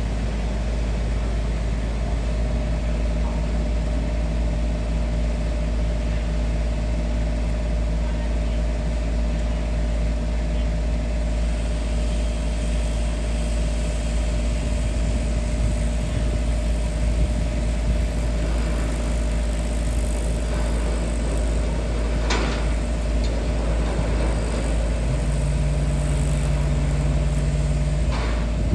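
An engine running steadily, with a deep rumble and a constant hum. A lower tone joins for about three seconds near the end, and there are two sharp knocks, one about two-thirds of the way through and one at the very end.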